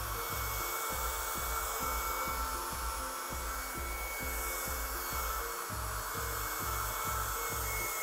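Atavio USB mini keyboard vacuum running with a steady high whine while its brush tip is rubbed back and forth over laptop keys, the bristles scraping across the keycaps.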